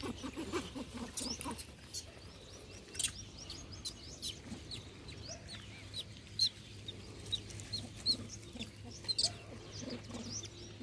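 Many short, high-pitched chirping calls from small animals, scattered and overlapping, with a low steady hum coming in about halfway through.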